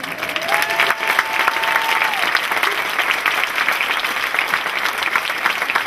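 Audience applauding steadily, dense clapping that swells in right at the start and holds. A held call rides over it for about two seconds near the start.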